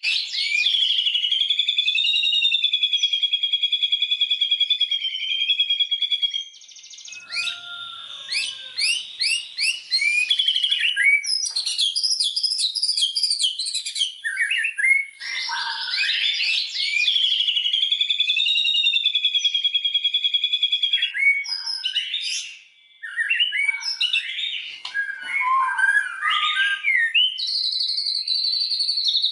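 White-rumped shama (murai batu) singing a loud, varied song. Long, fast, wavering trills alternate with runs of rising and falling whistled sweeps and short, quick phrases.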